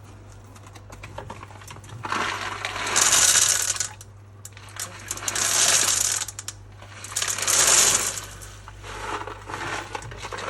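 Coarse dishwasher salt poured from its packet through a small funnel into the water-filled salt reservoir of a dishwasher, in about four pours of a second or two each with short pauses between; the first full pour is the loudest.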